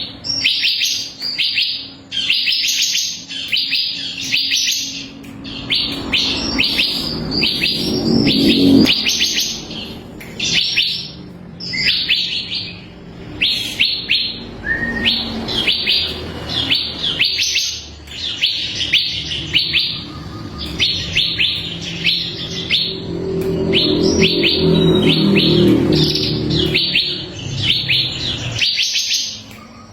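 Bar-winged prinia (ciblek kristal) singing a fast run of high, sharp chirps, phrase after phrase with hardly a pause. A low drone underneath swells about eight seconds in and again from about twenty seconds.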